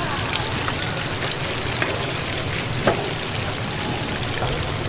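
Large battered tempura pieces deep-frying in a pan of hot oil, a steady sizzling crackle. There is a single sharp click a little under three seconds in.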